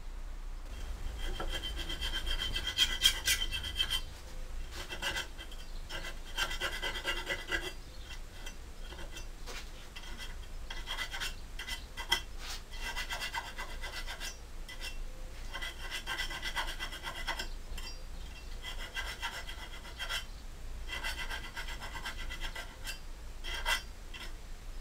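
Small hand file scraping back and forth on the edge of a sheet-steel piece clamped in a bench vise, in runs of quick strokes with short pauses between. A high ringing note rides on the strokes.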